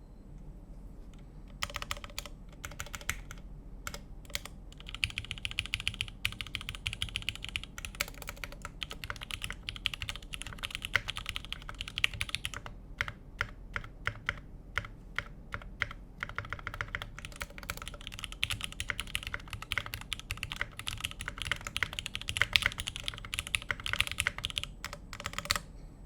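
Typing on a computer keyboard. Scattered keystrokes start about two seconds in, then build into two long runs of fast, continuous typing with a sparser patch between them, and the typing stops just before the end.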